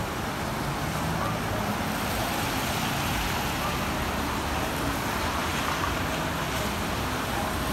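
Road traffic on a wet street: cars passing with a steady hiss of tyres on wet pavement.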